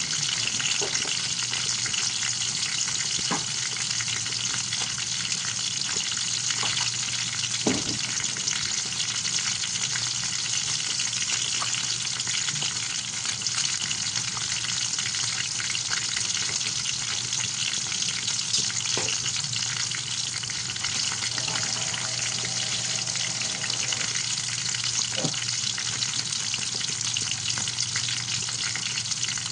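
Bangus (milkfish) frying in hot oil: a steady sizzle with occasional small pops and crackles.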